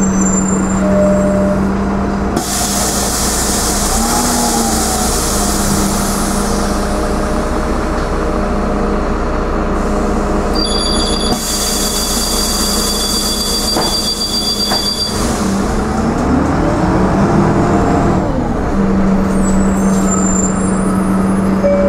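Interior noise of a Karosa B961 articulated diesel city bus: the engine runs with a steady low hum, with two long hisses of compressed air from the bus's air system, a few seconds each, the second carrying a steady high tone. Near the end the engine note rises and falls.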